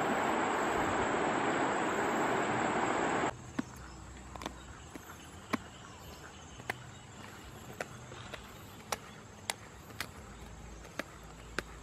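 Steady rush of a fast-flowing river, cut off suddenly about three seconds in. Then, much quieter, a duck's feathers are plucked by hand, giving short sharp snaps about one a second.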